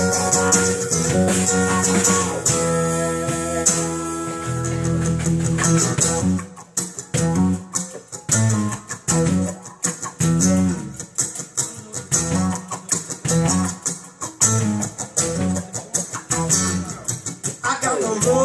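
Live rock band with electric and acoustic guitars and drums playing an instrumental passage: held, full chords for about six seconds, then short, choppy stabs in a steady rhythm over cymbals. Singing comes back in right at the end.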